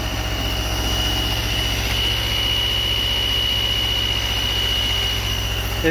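Land Rover's carburetted petrol engine running roughly, still misfiring after the refit: really not happy at all. A steady high whistle runs over the engine note throughout.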